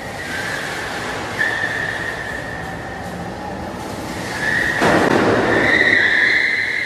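Golf cart tyres squealing on the smooth concrete floor of an enclosed parking garage as the cart turns sharply: a steady high squeal that grows louder about five seconds in.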